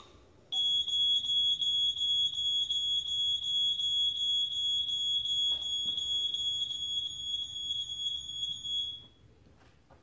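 Smoke alarm sound played from a laptop speaker: one continuous high-pitched alarm tone that starts about half a second in and cuts off about a second before the end.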